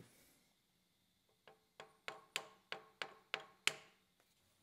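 Brass hammer tapping a connecting rod in its fixture on a milling machine table, nudging it into alignment under a dial test indicator until the rod cap's parting line sits parallel with the table. About eight light taps with a short metallic ring come over two seconds starting about a second and a half in, the last one the loudest.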